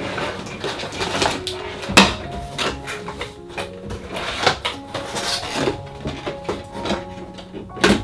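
Clicks, knocks and rustling from handling plastic and cardboard figure packaging, with one sharp knock about two seconds in, over background music.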